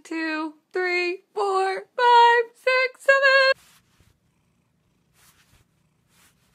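A high-pitched voice counting aloud quickly from one to seven, rising in pitch, stopping about three and a half seconds in. Only a faint low hum remains after it.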